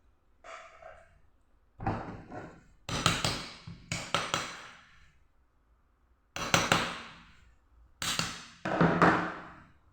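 A series of sharp metallic knocks and clanks, each ringing briefly before dying away, with a quick cluster about three to four and a half seconds in: metal engine parts and tools being handled and knocked together while the improvised ring compressor is taken off.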